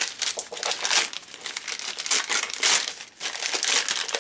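Christmas wrapping paper being torn and crumpled by hand as a small gift is unwrapped, rustling and crinkling in irregular bursts.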